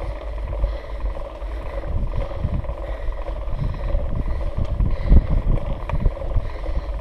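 Gusty low wind rumble on a mountain bike's GoPro microphone during a slow climb on a concrete track, with a few light clicks and rattles from the bike.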